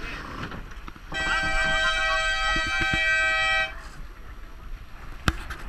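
Race committee signal horn sounding one steady blast of about two and a half seconds at a sailboat race start, over wind and water noise, followed by a single sharp click near the end.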